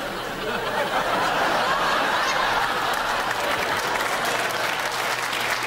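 Studio audience laughing and applauding, swelling about half a second in and holding steady.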